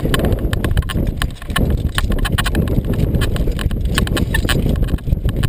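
Rapid, irregular clicks and clanks of metal climbing hardware (carabiners and harness fittings) being handled on a steel mesh platform, over a low rumble of wind on the microphone.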